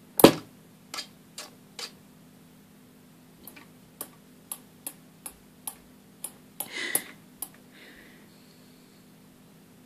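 Sharp clicks of a kitten's paw and claws tapping the glass globe of a plasma ball, about a dozen irregular taps, the loudest just after the start, and none in the last couple of seconds. A steady low electrical hum from the plasma ball runs underneath.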